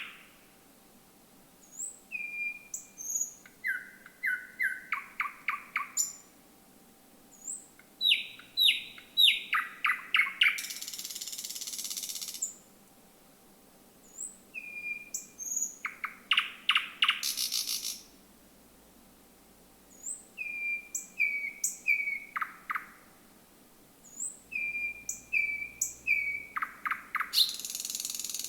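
Thrush nightingale singing: five phrases of whistled notes and rapid clicking notes, with a short pause between phrases. Two phrases end in a long dry rattle, one in the middle and one at the end.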